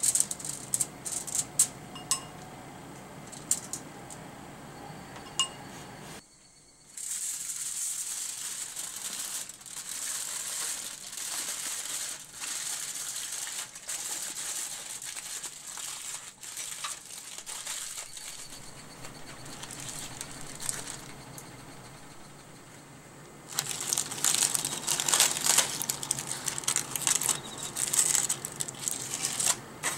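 Aluminium foil crinkling and rustling as hands fold it shut around a packet of mushrooms, then crinkling louder and denser near the end as the cooked foil packet is pulled open. At the start, light taps and clicks as shimeji mushrooms are laid onto the foil.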